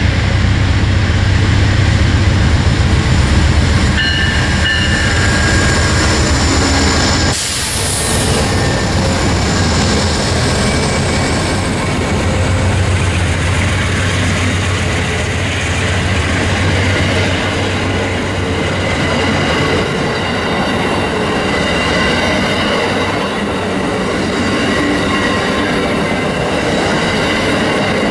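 Amtrak diesel-hauled passenger train passing close by at speed. The locomotive's engine is loud for the first several seconds; about seven seconds in the sound changes abruptly with a brief hiss, then the passenger cars' wheels run steadily on the rails.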